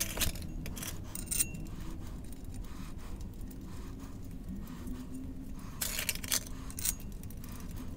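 Steel flywheel bolts clinking and jingling in a small metal dish as they are picked out by hand, with a few sharp clinks near the start and a cluster of them about six seconds in.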